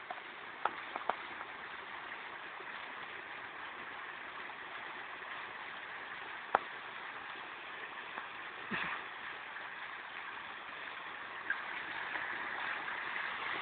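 Water gushing from a pipe into a pool, a steady rushing splash. A few sharp knocks come in the first second or so and one loud knock about six and a half seconds in.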